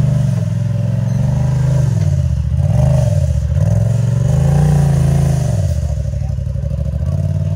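Side-by-side UTV engine revving up and down repeatedly under throttle as the machine climbs a rock ledge, with the pitch rising and falling in several swells before settling steadier near the end.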